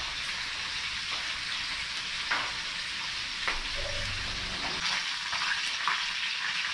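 Tilapia frying in hot cooking oil in a pan: a steady sizzle with a few short crackles.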